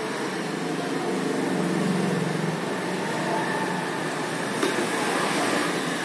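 Steady rushing hiss of a hot air rework station's blower, with a single sharp click a little before five seconds in.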